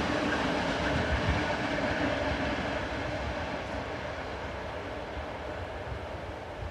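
Freight train hauled by TasRail diesel locomotive 2011, its engine and rolling bulk cement wagons fading steadily as the train moves away.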